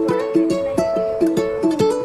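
Background music: quick plucked notes on a ukulele-like string instrument, about four or five a second.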